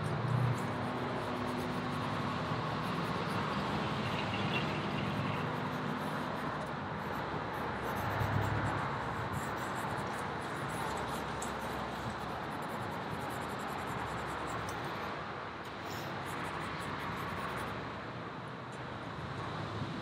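Steady outdoor road-traffic noise, with a car passing about eight seconds in. Over it, faint scratchy strokes of a charcoal stick on drawing paper.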